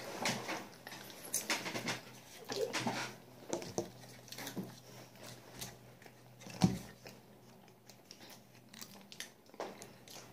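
Children chewing and biting banana fast: soft, irregular mouth noises and small clicks. A single louder thump comes about two-thirds of the way through.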